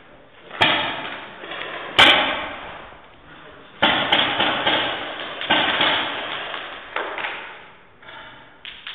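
Paintball marker shots in a large empty concrete hall: about five loud cracks a second or two apart, each ringing out in a long echo.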